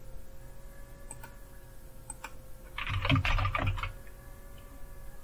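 Typing on a computer keyboard: a few scattered key clicks, then a quick run of keystrokes about three seconds in, over a faint steady hum.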